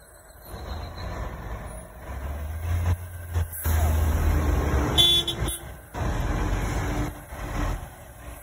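Large diesel tour coach running close by as it creeps through a tight turn: a low engine rumble that swells from about two seconds in. About five seconds in there is a brief high-pitched tone.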